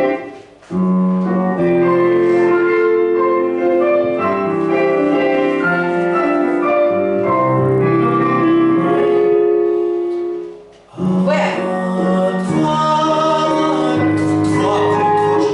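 A man singing a phrase of a Russian romance over piano accompaniment, in long held notes, breaking off briefly about ten and a half seconds in before carrying on.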